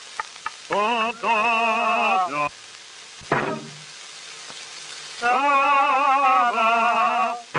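Early sound-cartoon soundtrack: two long warbling notes with heavy vibrato, separated by a quick falling swoop, with a few short clicks at the start and steady film hiss in the gaps.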